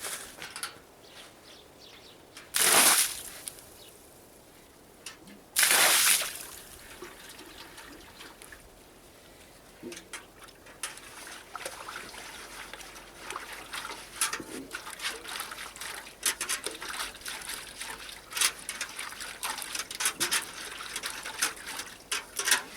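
Water pouring and splashing in two loud rushes, about 3 and 6 seconds in, then trickling with many small drips and clicks.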